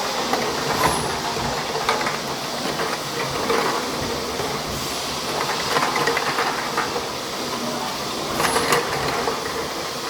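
Automatic bottle filling and capping machine running: steady mechanical noise with irregular clattering, and short hissing bursts about a second in and again near the end.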